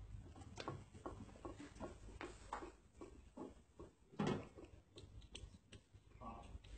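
Small scattered clicks and knocks of plastic fittings being handled, as a hose is pushed onto a connector on a hydrafacial machine and a bottle is fitted to its handpiece. One louder knock comes about four seconds in, over a faint low hum.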